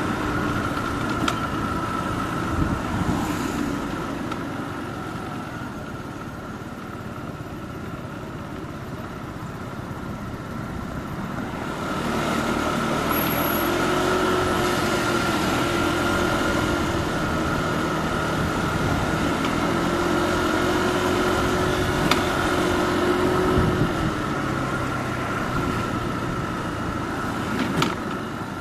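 Motorbike engine running while riding, over road and wind noise. It eases off about four seconds in and picks up again about twelve seconds in, its pitch rising and falling gently.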